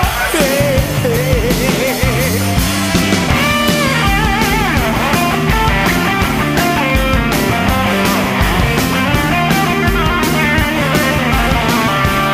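Instrumental break of a Japanese rock song: a wavering electric-guitar lead over bass and steady drums.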